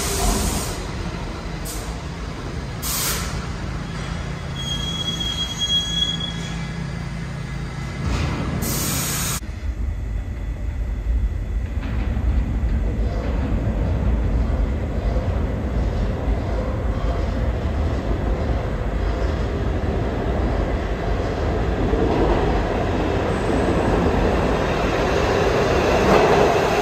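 New York City subway D train approaching through the tunnel and entering the station. Its wheels squeal in short bursts on the curve in the first ten seconds, with one held high squeal, then a steady rumble grows louder as the train pulls up to the platform near the end.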